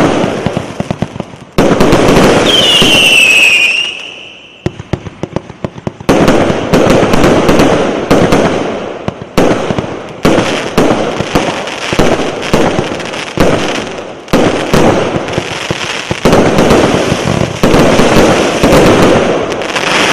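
A 100-shot firework cake firing volley after volley of sharp bursts with crackling. A falling whistle sounds about two and a half seconds in, and there is a short lull of scattered crackles around four to five seconds in.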